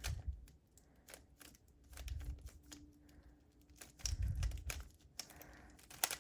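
Rubik's Cube layers being turned fast by hand: an irregular clatter of sharp plastic clicks, with a few dull low thumps from handling the cube.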